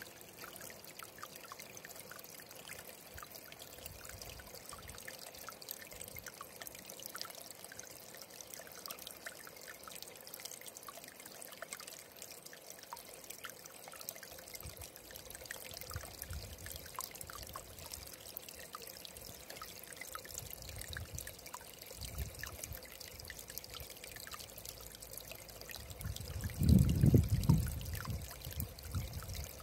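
Small shallow stream trickling and babbling over stones: a steady water sound full of small splashes. About four-fifths of the way through, a loud low rumble rises over it for a couple of seconds.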